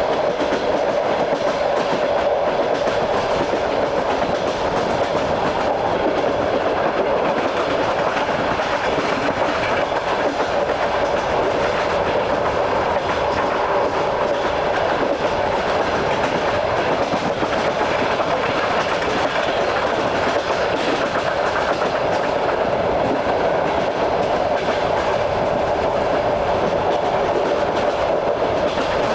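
Train running steadily at speed, heard from aboard: a continuous rumble of the wheels on the rails with the clatter of wheels over rail joints.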